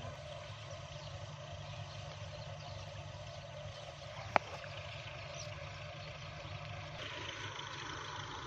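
A low, steady engine hum in the distance, with a single sharp click about four seconds in.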